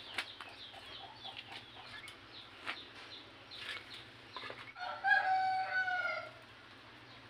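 A rooster crows once about five seconds in, a single held call of roughly a second and a half. Before it come repeated short, high, falling bird chirps.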